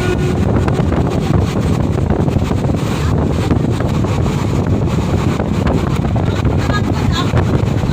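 Wind buffeting the microphone: a loud, steady low rumble with crackles throughout. A few faint, short high tones come through about seven seconds in.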